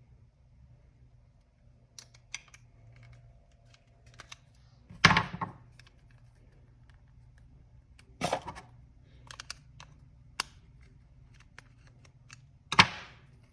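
Flathead screwdriver prying apart the plastic shell of a Honda keyless remote: scattered small clicks and scrapes, with three louder sharp snaps, one about five seconds in, one about eight, and one near the end.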